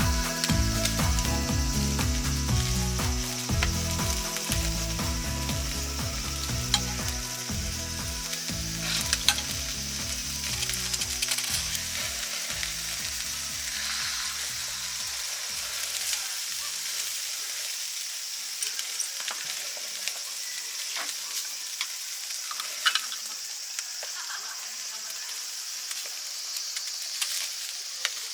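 Bulgogi sizzling as it fries in a pan, a steady hiss with occasional clicks of stirring utensils. Background music fades out over the first half.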